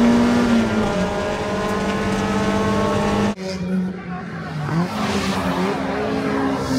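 Mazda MX-5 race car's four-cylinder engine running at high revs under acceleration, with a brief sharp break a little over three seconds in, after which the engine note dips and climbs again.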